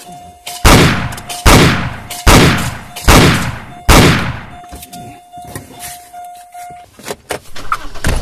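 Five gunshots fired in quick succession, a little under a second apart, each with a short echoing tail. A faint steady high tone sounds between the shots.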